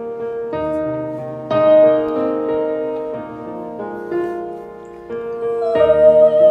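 Slow, gentle piano music: chords struck about once a second and left ringing. Near the end a wavering held melody line comes in over the piano.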